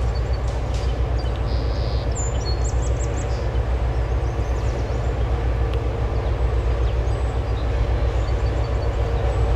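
Diesel locomotive running, a steady low rumble, with a few bird chirps about two to three seconds in.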